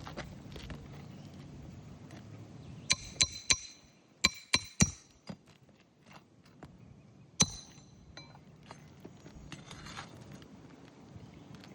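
Hammer driving roofing nails into asphalt shingles: seven sharp, ringing metal strikes, two quick sets of three a little past the start, then a single blow about halfway through.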